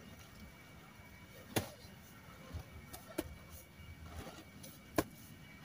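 Hoes striking and dragging loose earth into a grave: four sharp knocks at uneven intervals, the loudest about a second and a half in and near the end, over a quiet background.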